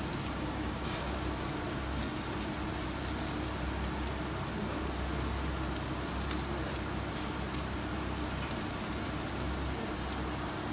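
Commercial gas grill burners running with a steady rush, yakitori skewers sizzling and charcoal crackling faintly over them, and a steady low hum underneath.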